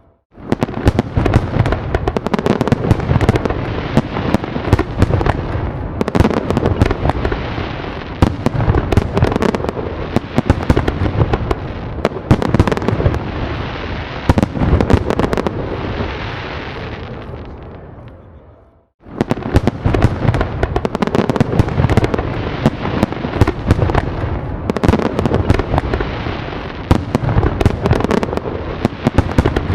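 Fireworks going off in rapid succession: dense crackling pops over deeper booming bursts. The barrage fades away about two-thirds through, breaks off into a moment of silence, then starts again at full strength.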